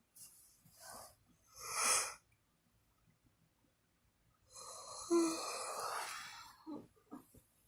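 Snoring in sleep: a short breath near the start, a louder breathy snore about two seconds in, then a longer snore from about four and a half to six and a half seconds in with a brief low buzz partway through.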